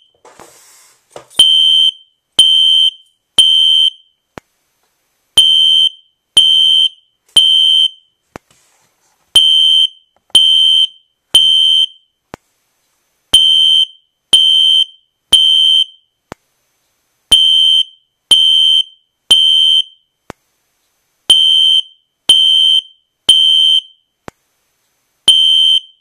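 System Sensor SpectrAlert Classic P241575 fire alarm horn sounding a high electronic tone in the temporal-three evacuation pattern: three short blasts, a pause, then three more, repeating. The alarm has been set off from a pull station. Faint clicks come about once a second.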